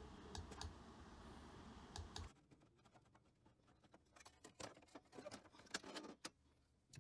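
Faint, scattered light clicks and taps of a thin black panel being handled and worked out of a computer case's metal top cage, with a cluster of small clicks in the second half.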